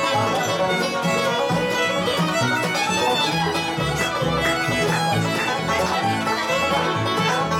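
Bluegrass band playing, with the fiddle taking a bowed solo break over a steady bass line on the beat and rhythm from guitar and mandolin.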